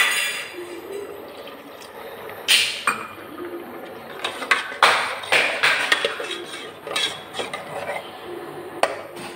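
Water pouring into a pressure cooker pot of dal, which is then stirred with a steel ladle that knocks and scrapes against the pot's sides several times.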